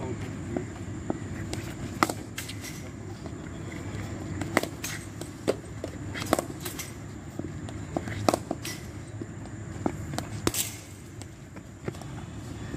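Sharp knocks and clicks at irregular intervals, about a dozen, from cricket net practice on a concrete pitch, over a steady low background noise.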